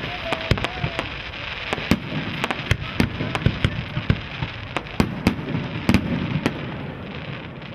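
Fireworks display: a rapid, irregular run of sharp bangs over continuous crackling, easing off about seven seconds in.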